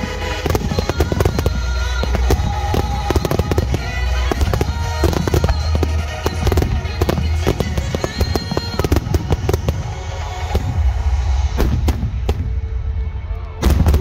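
A barrage of aerial firework shells bursting in rapid succession, many overlapping bangs with a louder cluster near the end, over background music.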